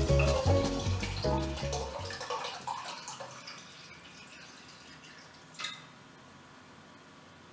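Background music with a steady beat fades out over the first two seconds. Liquid then pours from a plastic bottle into a glass mug, a faint steady trickle, with one sharp click about five and a half seconds in.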